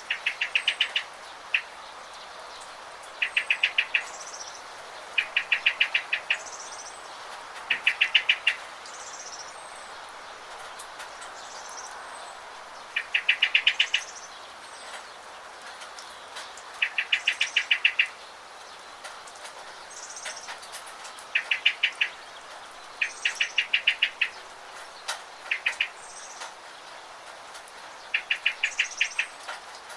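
A bird repeating a short, rapid trill about a second long every few seconds, with short higher chirps between the trills, over the steady hiss of rain.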